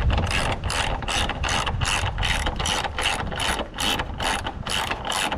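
Hand ratchet wrench tightening a 10mm bolt or nut, the pawl clicking in a steady run of strokes at about three a second.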